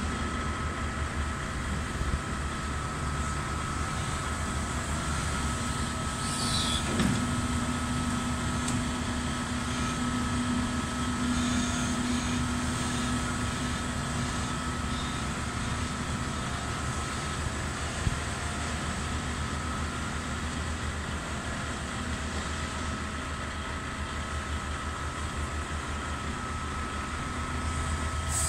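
Diesel engine of a wheeled excavator running steadily, with a thin steady whine over it. The engine note strengthens for about ten seconds from around five seconds in, and there are a few short knocks.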